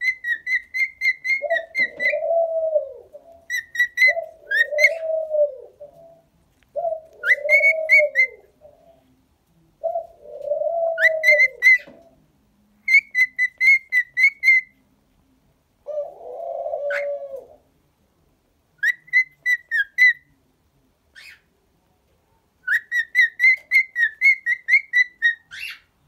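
Cockatiel whistling: runs of quick, high, repeated whistle notes, alternating with about five lower, arched cooing calls.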